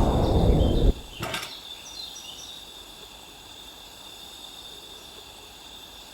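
5-inch gauge miniature railway train running on the track, its noise fading and then cutting off abruptly about a second in, followed by a single short clack. After that, quiet outdoor background with a steady high insect drone and a few faint bird chirps.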